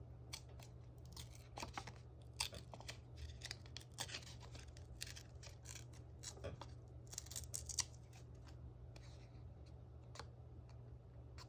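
Paper crafting at a desk: a quick run of short, crisp snips and crackles of paper being cut and handled, busiest in the first eight seconds and thinning out after. A steady low hum runs underneath.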